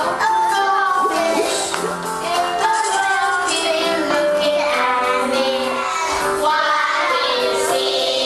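Children's song: children singing a melody over an instrumental backing track.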